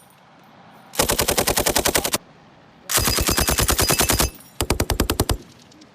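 M240B belt-fed 7.62 mm machine gun firing three short bursts of about a second each, at roughly ten rounds a second, with brief pauses between bursts.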